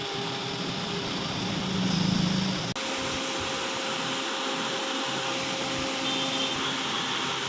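Steady hiss of static from an LG television's speakers, the TV's sound fault, with faint hum tones underneath. A brief louder low hum comes about two seconds in, then a click, after which the hiss carries on.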